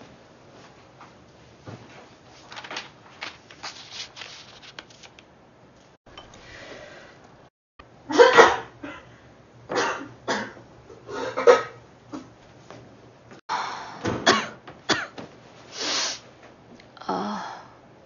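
A woman sneezing again and again, a string of about eight sharp sneezes in the last ten seconds, after a few quieter seconds.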